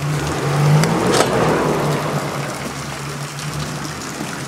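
A motor vehicle's engine running with a steady low hum and wet-road noise, which swells louder for the first two seconds, with a sharp knock about a second in.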